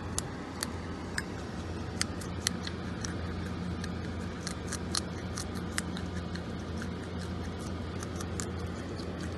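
A groundhog crunching on a raw carrot: crisp, irregular snapping bites, a few to several a second, over a steady low hum.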